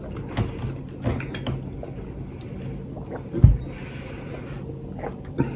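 People eating: chewing and mouth sounds with small clicks, and one dull low thump about three and a half seconds in.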